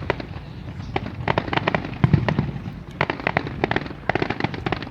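Fireworks display going off: clusters of rapid sharp pops and crackles, several a second, with a deeper boom about two seconds in.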